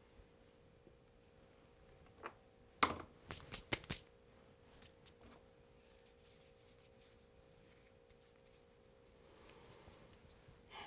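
Small objects set down on a workbench cutting mat: a few light clicks and knocks between about two and four seconds in, the loudest near three seconds, as a power cord plug and a roll of Kapton tape are laid down. Otherwise quiet, with a faint steady hum.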